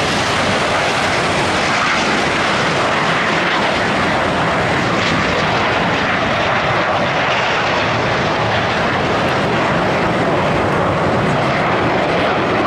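Steady jet noise from Red Arrows BAE Hawk T1 jets, with Adour turbofan engines, flying past in close formation.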